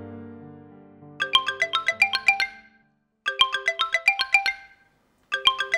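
Smartphone ringing: the ringtone is a quick run of bright, struck notes, played three times with short pauses between. Soft piano music fades out in the first second.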